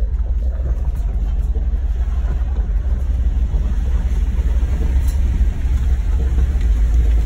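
A 1998 Jeep Grand Cherokee 5.9 Limited's 5.9-litre V8 running as the vehicle drives slowly along a rough dirt trail, heard from inside the cab as a steady low rumble.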